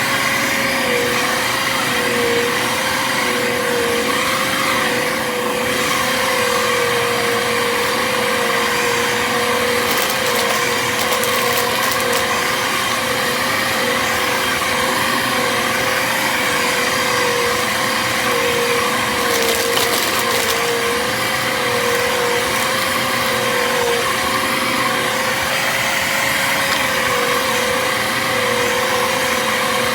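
Bissell vacuum cleaner running steadily with a high motor whine whose pitch dips slightly every second or two as it loads, while foil confetti crackles and rattles as it is sucked up.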